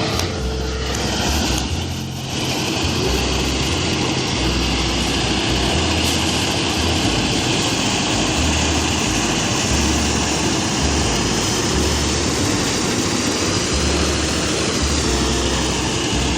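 Engine-driven rice harvesting machinery running steadily and loudly, with a continuous mechanical drone and an uneven low throb.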